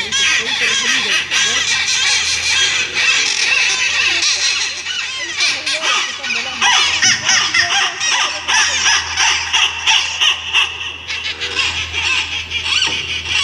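Many jungle birds calling at once: a dense chorus of short, overlapping calls that rise and fall in pitch without a break, over a steady low hum.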